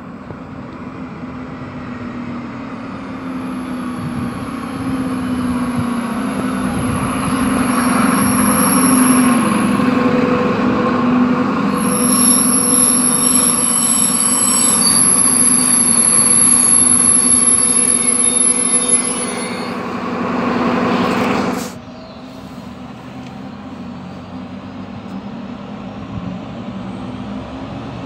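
A Czech Railways diesel railcar arriving at the platform: its engine and wheel noise grow louder as it comes in, with high-pitched squeals from the brakes and wheels as it slows. The noise cuts off suddenly about 22 seconds in, leaving a lower steady background.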